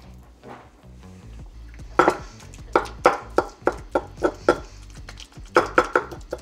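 Pestle knocking and working in a mortar, mashing ripe avocado: a run of sharp strikes at about three a second starting about two seconds in, with a short pause midway. Background music plays underneath.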